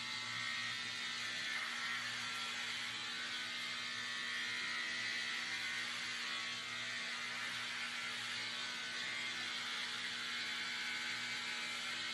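Electric hair clippers running with a steady buzz while shaving long hair off the head.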